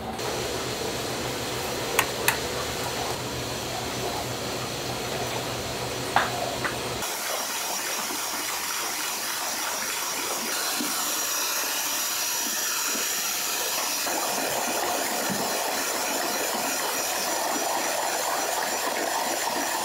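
Electric hand mixer running steadily, its beaters churning a large bowl of liquid egg with a wet, hissing swish. A few light knocks come in the first seconds.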